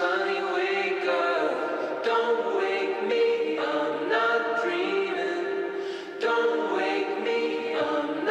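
Background music: a choir of voices singing slow, long-held notes.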